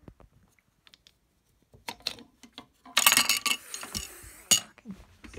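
Small metal parts and tools clinking and clattering on a desk: a few light clicks, then a loud burst of metallic rattling about three seconds in, ending in a sharp clink.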